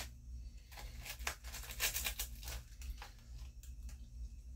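Dense crinkling and crackling of a small red candy wrapper handled right against the microphone, thickest from about a second in to about three seconds, then thinning to scattered clicks over a low steady hum.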